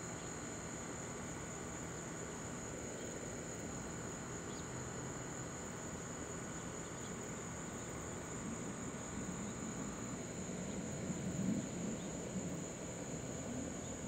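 Steady high-pitched chirring of insects, with the low rumble of a Boeing 787-10 jet airliner passing high overhead building up in the second half.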